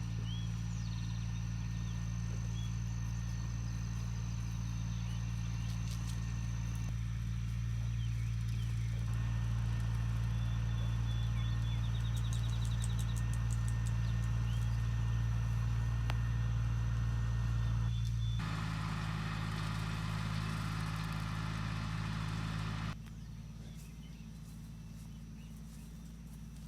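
Engine idling steadily, its hum shifting abruptly twice and dropping in level near the end, with faint bird chirps over it.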